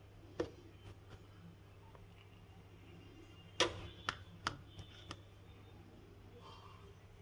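A few light clicks and knocks of hard parts being handled, one near the start and a quick cluster of four around the middle, the one about three and a half seconds in the loudest, over a low steady hum.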